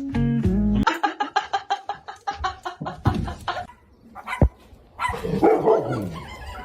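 A dog yipping and barking in a fast run of short, pitched calls, about six a second, for nearly three seconds, followed a little later by a rougher, noisier stretch. Guitar music ends just under a second in.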